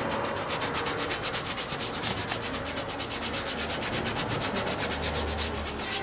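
A paintbrush scrubbing oil paint onto stretched canvas in short, quick hatching strokes: a rhythmic rubbing, about six or seven strokes a second, as an underlayer of colour is laid into the clouds.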